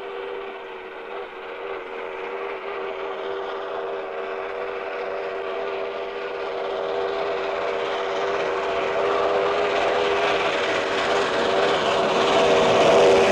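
Steam locomotive approaching, its whistle sounding one long, steady chord of several notes over the rising rumble of the train, which grows louder as it nears.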